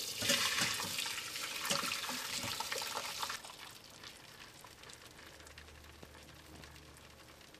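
Homemade chicken stock poured from a pot through a wire-mesh strainer into a steel pot, the liquid splashing and pattering into the strainer and pot. The pour is heavy for about the first three seconds, then drops to a thin trickle with a few light taps.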